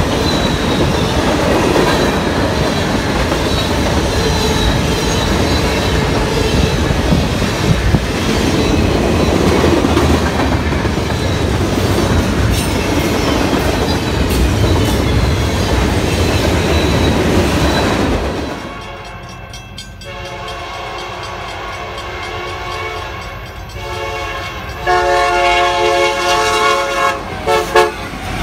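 Freight train of hopper and gondola cars rolling past, a steady rumble with wheels clacking over the rail joints. About two-thirds of the way in the sound drops off suddenly. Then a Union Pacific diesel locomotive's multi-tone air horn sounds, faint at first and loud in the last few seconds, broken into several blasts.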